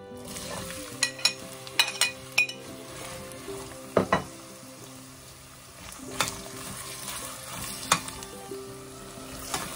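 Sliced red onions sizzling in hot oil in a stainless steel pressure cooker, with a slotted metal spatula knocking and scraping against the pot several times as they are stirred.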